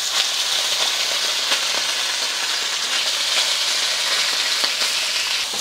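Marinated sliced flank steak frying in vegetable oil in a smoking-hot wok: a steady, loud sizzle with a few faint clicks.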